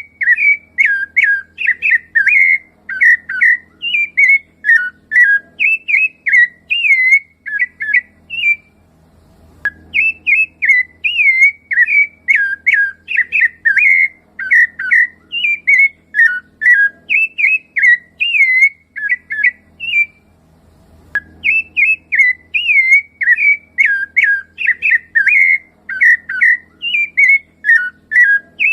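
Rufous-bellied thrush (sabiá-laranjeira) singing: loud, clear whistled phrases of gliding notes, several a second, in long runs broken by two short pauses, about nine and about twenty seconds in.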